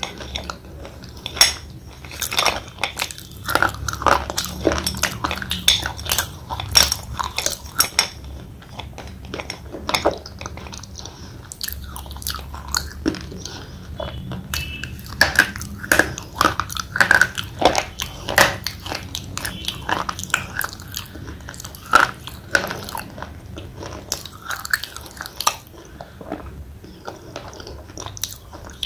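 A thick slate pencil being bitten and chewed: a long, irregular run of crunches and clicks, with some louder bites among them.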